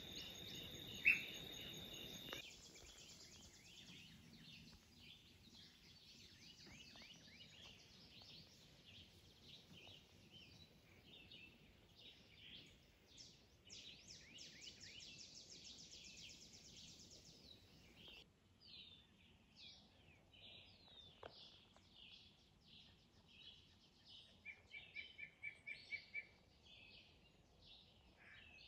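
Faint outdoor ambience of many small bird chirps and calls, with one brief sharp rising chirp about a second in and a quick run of repeated calls near the end.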